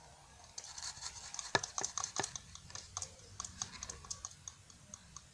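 Close-miked handling noise: irregular light clicks and soft crackles, busiest in the first half.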